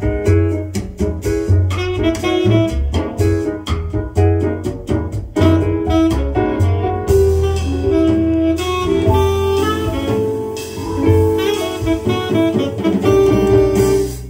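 Saxophone-led jazz played from a vinyl record over hi-fi loudspeakers.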